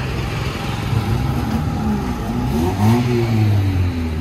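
Street traffic with a motor vehicle's engine revving up and back down in the middle, its pitch rising and falling, over a steady engine hum.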